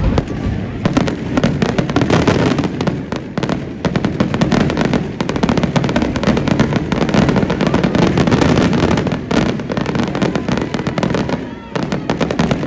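Aerial fireworks bursting in a dense, rapid barrage of bangs and crackles with a low rumble underneath. There is a brief lull near the end.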